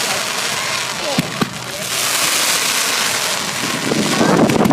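Fireworks display going off: a continuous dense crackle, with two sharp bangs in quick succession about a second in.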